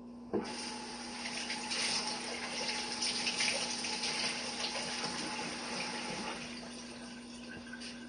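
Tap water running into a sink while a jar is rinsed out. It starts with a short knock about half a second in and eases off toward the end.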